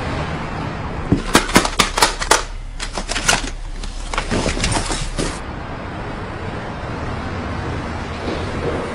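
Plastic CD jewel cases clacking against each other as a hand flips through a stack of CDs: a quick, uneven run of sharp clicks lasting about four seconds, then steady background noise.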